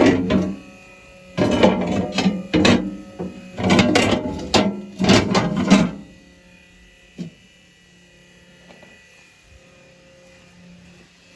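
Heavy steel parts clanking and banging together, a dozen or so ringing metallic knocks over about six seconds, then a faint steady hum with a single click.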